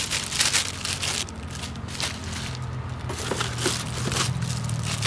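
Plastic and cardboard packaging crinkling and rustling in short irregular bursts as the new turn signals are handled and unwrapped, over a low steady hum.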